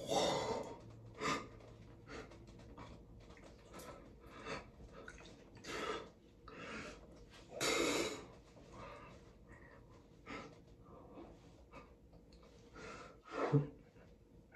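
A man breathing out sharply through his nose and mouth while he wipes shampoo and water from his face with a towel. The bursts come irregularly, every second or two, and the strongest is about eight seconds in.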